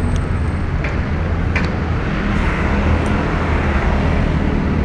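A motor engine running steadily with a low hum, among street traffic noise, with a few light clicks.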